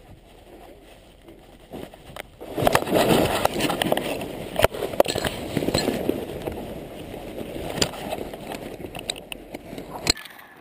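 Paratrooper's parachute landing heard from a helmet-mounted camera: faint wind noise on the microphone under the canopy, then about two and a half seconds in a sudden loud impact followed by rustling and scraping of gear, parachute fabric and dry grass against the camera, with scattered knocks. The sound cuts off abruptly near the end.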